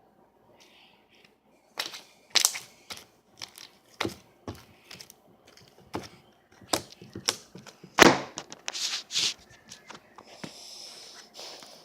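Slime being squeezed and worked by hand, giving irregular sticky pops and crackles, the loudest about eight seconds in.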